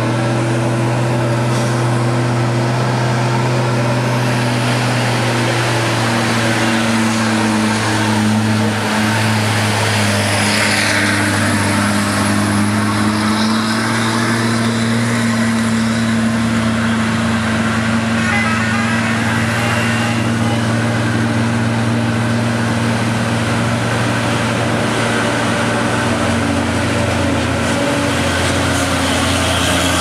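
Heavy diesel truck engines running with a steady low hum as trucks drive past on the road.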